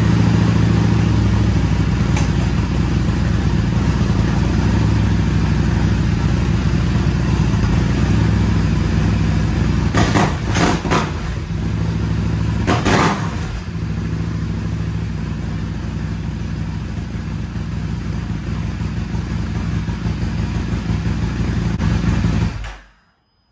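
Buell 1125CR's liquid-cooled V-twin engine running steadily, with three brief louder surges about ten to thirteen seconds in, then shut off near the end. The engine is being run to check the clutch after a slave cylinder replacement and bleed.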